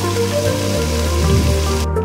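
Background music with sustained notes over the hiss of chicken sizzling in a frying pan on a gas camping stove. The sizzle cuts off abruptly just before the end.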